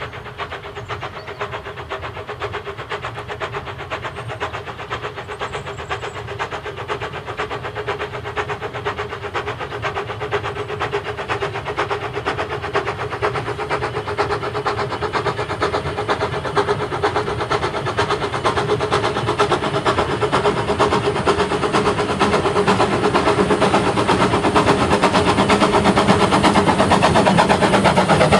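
Narrow-gauge saddle-tank steam locomotive working towards the listener with a train of coaches, its quick, even exhaust beats growing steadily louder as it nears.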